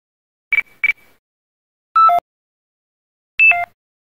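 Motorola C168i mobile phone's battery-empty alert: two quick high beeps on the same pitch, then, about two seconds in, a short falling two-note tone. Near the end, another short electronic tone falls in several steps.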